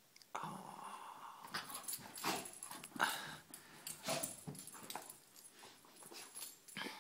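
Puppies playing, making short whines and small growls among irregular scuffling noises.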